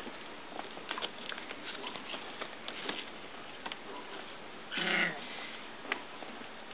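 Three-week-old Icelandic sheepdog puppies scuffling on a sheet, with small scratches and rustles, and one short, high puppy squeal about five seconds in.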